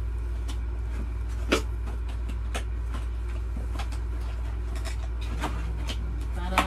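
Cardboard box and paper packaging being handled while a laptop is unpacked: scattered light taps, rustles and clicks, with one sharper knock about a second and a half in and another near the end, over a steady low hum.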